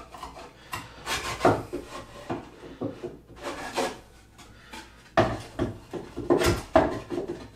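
Wooden back panel being test-fitted into a wooden cabinet frame: wood scraping and knocking against wood in several irregular strokes, heaviest near the end.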